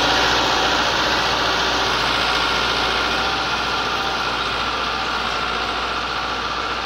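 Massey Ferguson 385 tractor's diesel engine running steadily under load as it pulls a 13-tine tiller through the soil, fading gradually as it moves away.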